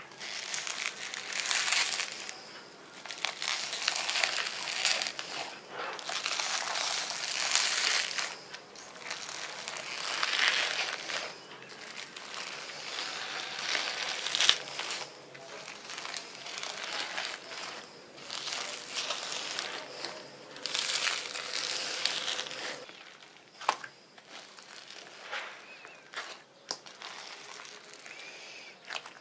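Fluffy slime being squished and stretched by hand, in repeated crackling, crinkly bursts that grow sparser and quieter near the end.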